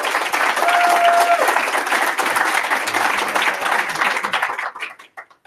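Audience applauding, with one held high cheer near the start; the clapping thins to a few scattered claps near the end and then stops.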